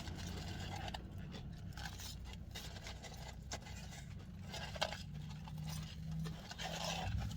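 Faint chewing and small mouth clicks from someone eating fries, over a low steady hum.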